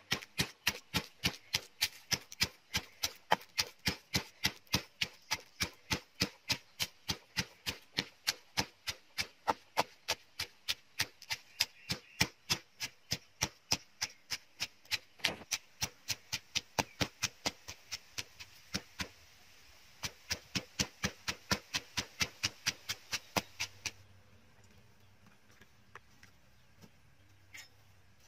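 Stone pestle pounding fresh chillies and garlic in a stone mortar, a steady rhythm of about three strikes a second. There is a brief break about two-thirds of the way through, and the pounding stops a few seconds before the end.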